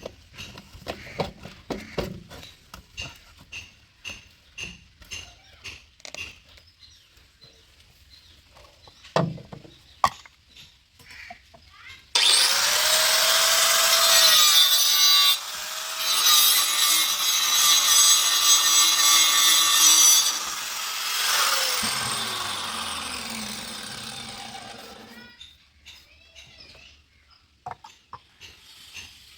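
Handheld power tool cutting or grinding: a run of short scraping strokes, then the tool starts suddenly and runs loud for about eight seconds with one brief break, and near the end its pitch falls as it winds down and fades.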